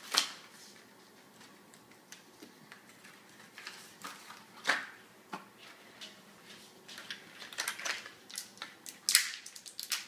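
Plastic packaging of a pack of small erasers being handled and opened: scattered sharp crinkles and clicks, coming quicker in a cluster near the end.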